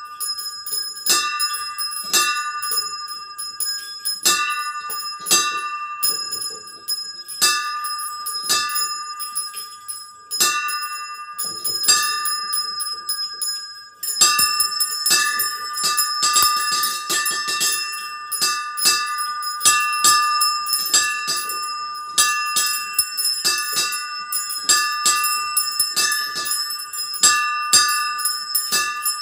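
Small brass bells of a miniature bell tower ringing in a Spanish-style peal of swinging and striking (volteo and repique): rapid, overlapping strikes that ring on. Denser and louder from about halfway through.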